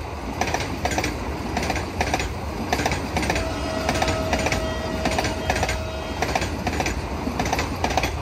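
Vande Bharat Express electric train passing at close range, its wheels clattering over rail joints in regular clusters of clicks about once or twice a second over a steady rumble. A steady whine joins in for about three seconds in the middle.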